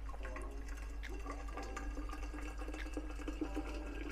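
Hot water poured in a thin stream into a tall glass bottle over a barley tea bag, splashing and trickling as the bottle fills.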